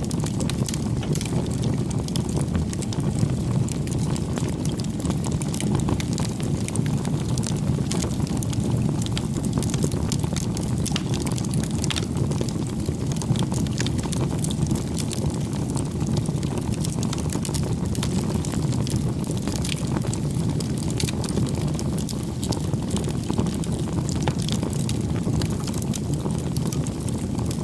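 Wood fire crackling: a steady low rush of flame with many small scattered pops and snaps.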